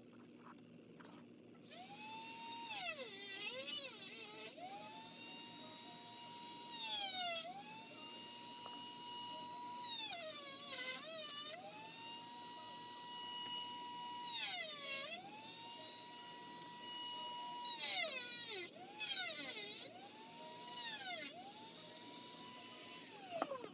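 Dremel rotary tool with a large bit starting up and running with a steady whine, its pitch sagging and a louder grinding rising about six times as it bites into the plastic blaster shell. It spins down near the end.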